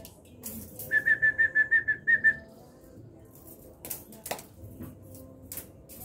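A quick run of about nine short, high whistle-like notes on one pitch, lasting about a second and a half, followed by a few faint clicks and taps.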